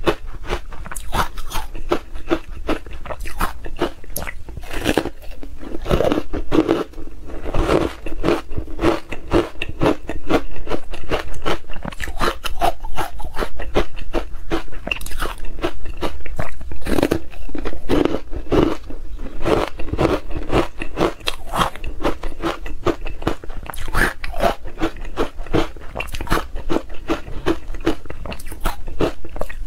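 Close, loud crunching of a stick of frozen ice coated in matcha powder being bitten and chewed, a rapid run of sharp cracks with no pause.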